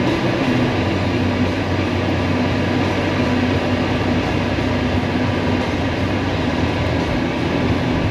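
Steady road and engine noise inside a moving car, a constant rushing sound with a low drone.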